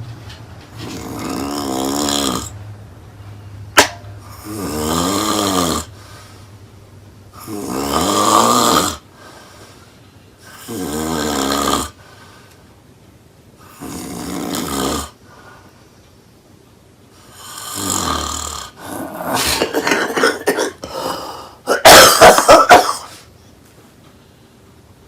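A woman snoring loudly, one snore about every three seconds, with a single sharp click shortly after the first. Near the end the snores break into a quick run of choppy, uneven snorts, the loudest of them all.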